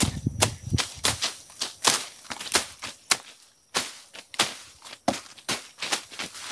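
Footsteps on forest ground, a sharp step roughly every half second at a walking pace.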